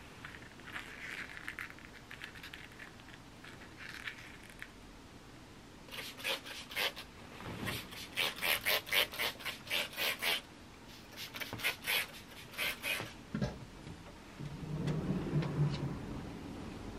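Spray bottle of disinfectant being pumped over bedding: a quick series of short spray bursts, about three or four a second, in several runs. Soft rustling of the bedding comes before it.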